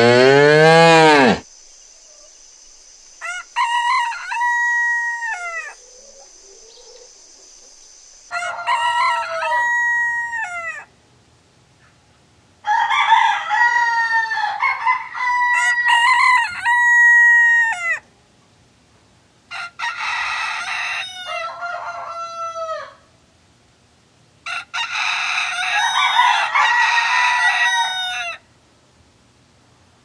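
A cow mooing, the call ending about a second and a half in, then roosters crowing cock-a-doodle-doo again and again in five stretches of two to five seconds each, with short pauses between.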